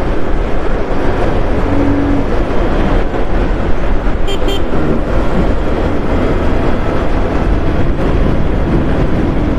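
Steady, loud road and wind noise from travelling along a road in a vehicle, with two short high beeps of a vehicle horn about four seconds in.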